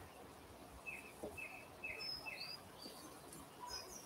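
Songbird chirping faintly in the background: a quick run of four short, falling chirps, with a few higher notes around them, over a few faint knife taps on a wooden chopping board.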